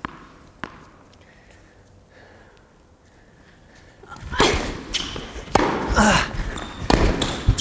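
Tennis ball bounced on an indoor hard court before a serve, then after a quiet spell a rally: sharp racket-on-ball hits and ball bounces about a second apart, with footsteps and shoe noise on the court.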